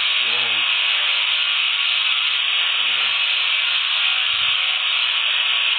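Handheld electric polisher with a green abrasive wheel running steadily against a stainless steel strip, giving it a hairline finish: a continuous high grinding sound.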